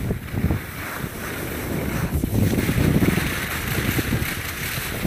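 Wind rushing over a phone's microphone while skiing downhill, with the hiss of skis sliding on snow. The noise swells and eases unevenly.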